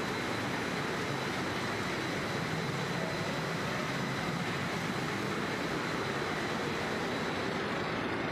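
Steady machinery noise of a running snack chip production line, a constant wash of noise with a faint high whine above it.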